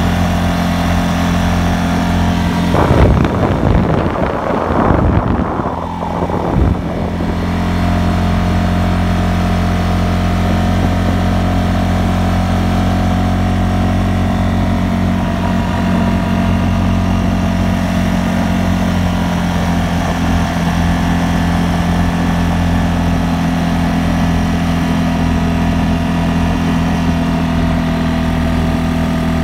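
CFMOTO CFORCE 600 ATV's single-cylinder, liquid-cooled engine running under way, a steady drone. About three seconds in, the sound gets louder and uneven for a few seconds, then settles back to the steady drone.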